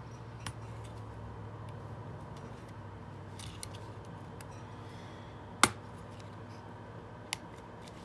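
Flat-blade screwdriver prying at the plastic housing of a C5 Corvette ignition switch: small scattered clicks and scrapes of plastic, with one sharp click a little past halfway and a smaller one near the end as the clips are worked loose. A steady low hum runs underneath.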